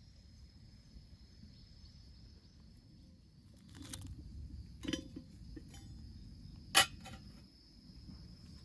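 Crickets chirring steadily over a low outdoor rumble, broken by a few sharp cracks or pops, the loudest one near the end.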